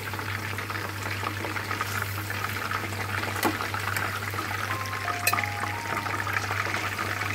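Masala-coated chicken lollipops shallow-frying in hot oil in a steel pan: a dense, steady sizzle and crackle, with a couple of sharper clicks of metal tongs against the pan as the pieces are moved.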